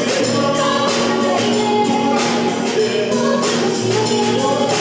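Small live band playing a pop song: a woman singing into a microphone over electric bass and guitar, with a steady beat.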